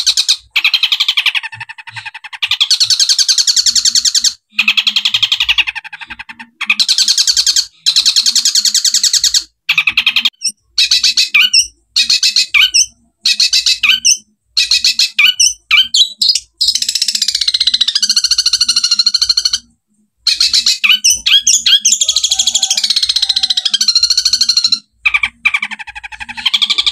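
Long-tailed shrike (cendet) singing loudly in long runs of rapid, harsh trills and chattering strokes, broken by short pauses, including mimicry of house sparrow chirps.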